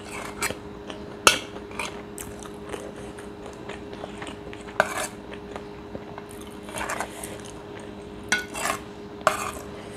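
Metal spoon scraping and clinking on a ceramic plate as fried rice is scooped up, with chewing in between; the sharpest clink comes just over a second in. A steady hum runs underneath.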